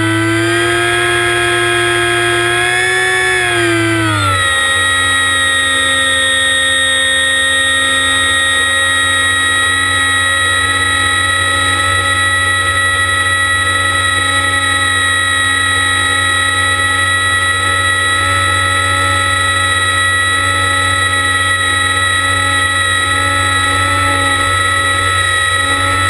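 ParkZone Icon A5's brushless electric motor and pusher propeller whining in flight, heard from the plane's onboard camera with wind rumbling on the microphone. The whine rises slightly, then drops to a lower steady pitch about four seconds in.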